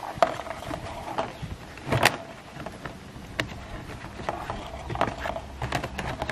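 Thin wire being threaded and twisted through a corrugated plastic board, making irregular small clicks and scrapes, with a sharper click just after the start and another about two seconds in.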